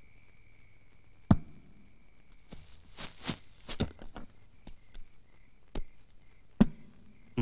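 Knocks and clattering from objects being handled and moved about: a sharp knock about a second in, a busy run of knocks and rustling a couple of seconds later, and another sharp knock near the end.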